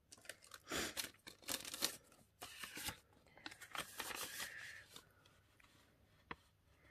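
A sheet of paper rustling and crinkling as it is handled and unfolded, a series of crisp rustles that die down after about five seconds.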